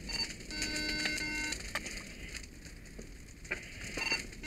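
A steady pitched electronic tone sounds for about a second, then a few sharp knocks and scrapes of firefighters' metal hand tools (halligan bar and pike pole) against the doorway and paver walk.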